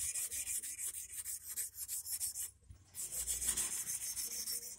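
A hand file rasping back and forth in quick, even strokes on the tip of a 2.5 mm stainless-steel wire, sharpening the point of an eel hook. The strokes break off briefly about halfway through, then resume.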